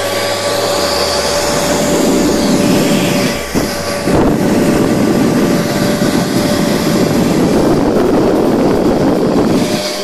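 Chinon C-300 dual 8mm film projector running, its motor-driven cooling fan giving a loud steady rush of air with a steady hum tone, heard close to the vent. A short knock about four seconds in.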